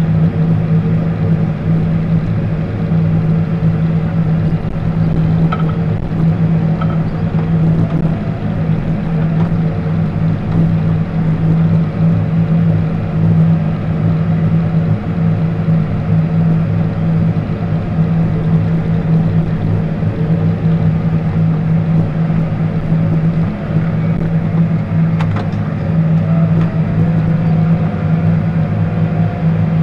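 John Deere tractor's diesel engine running steadily while plowing snow, heard from inside the cab.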